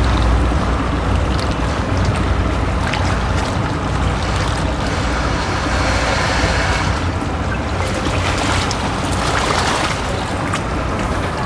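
Boat motor running steadily at idle, with wind rumble on the microphone.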